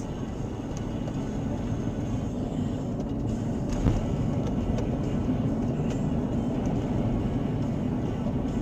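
Steady road and engine noise of a moving vehicle heard from inside its cabin, with one brief knock about four seconds in.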